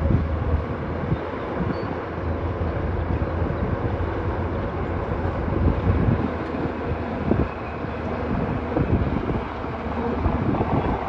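Heavy earthmoving machine's diesel engine running steadily with a deep rumble, with irregular knocks and clanks every second or two.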